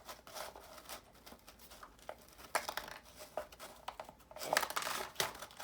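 Homemade cardboard candy dispenser worked by hand: cardboard scraping and rustling as its lever is pulled, with small sharp clatters about two and a half seconds in and again around four and a half seconds in as Skittles drop out.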